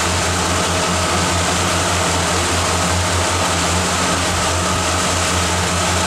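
Tour boat's engine running steadily at cruising speed, a constant low hum, under the even rush of water along the hull.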